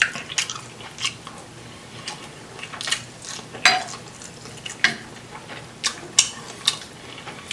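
Irregular clicks and clinks of a metal spoon against white ceramic serving dishes as food is picked up and eaten, about one every half second to second, one of them ringing briefly near the middle.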